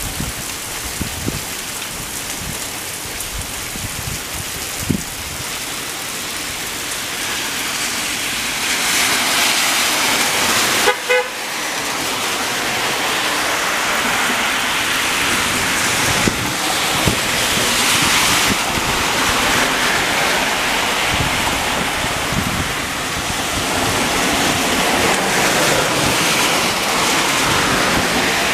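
Heavy rain pouring down on a street and pavement, a steady hiss that grows heavier about eight seconds in. A brief sharp sound cuts through about eleven seconds in.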